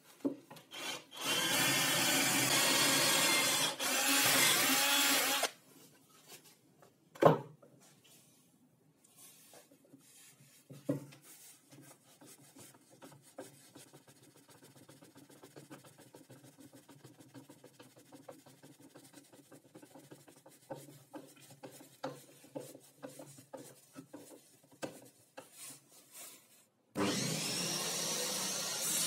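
Electric drill with a twist bit boring a hole into the end grain of a pine post for about four seconds. A couple of sharp knocks follow, then a long, quieter stretch of small clicks and rubbing as a long screw is driven into the wood. Background music comes in near the end.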